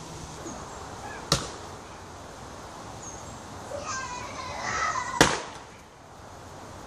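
An axe chopping wood: two sharp chops about four seconds apart, the second louder.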